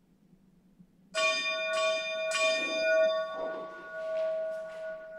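A bell struck three times about half a second apart, starting about a second in, its tone ringing on and slowly dying away: the bell rung as Mass begins.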